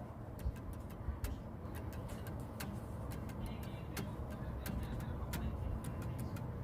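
Scattered, irregular light clicks and rustles from clothes and packaging being handled, over a steady low rumble.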